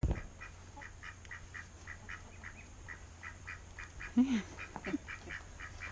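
A duck quacks loudly once about four seconds in, followed by a couple of shorter calls, over a high chirping repeated about four times a second.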